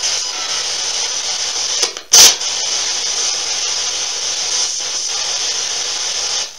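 Spirit box radio scanner sweeping through stations: a steady hiss of static, broken by one brief loud burst about two seconds in.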